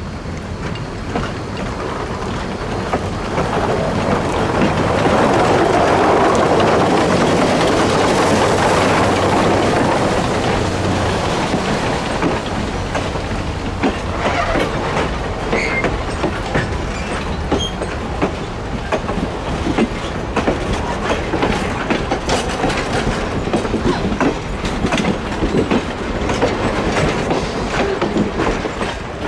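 Shay #5, a 1905 geared steam locomotive, pulling passenger cars across a steel girder bridge. The train's running noise swells to its loudest about five to ten seconds in and then eases, followed by a long run of sharp wheel clicks as the cars roll over the bridge.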